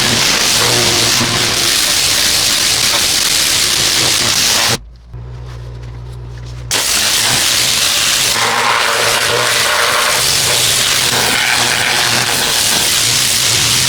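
Pressure washer with a turbo nozzle blasting concrete: a loud, steady hiss of water spray over the machine's low motor hum. Just under five seconds in, the spray cuts off for about two seconds, leaving only the hum, then starts again.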